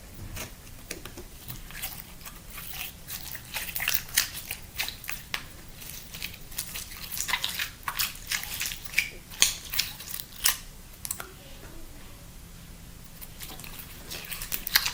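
Sticky slime being squeezed and pulled apart by hand, making irregular wet clicking and popping sounds, busiest through the middle with a quieter stretch shortly before the end.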